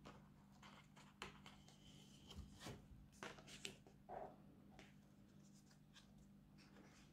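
Paper pages of a large sketchbook being turned and smoothed by hand: soft rustles and scrapes through the first few seconds, over a faint steady hum.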